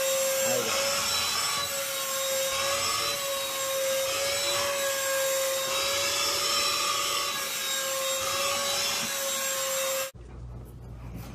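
Handheld vacuum cleaner running, a steady motor whine with rushing air whose pitch wavers slightly as it is moved over a cat's fur. It cuts off abruptly about ten seconds in, leaving a faint low hum.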